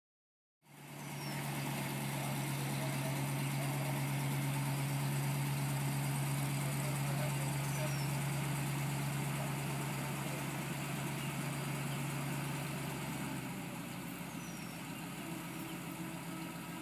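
Chapman Maverick crane base's engine idling steadily with a constant low hum, easing slightly a little over three-quarters of the way through.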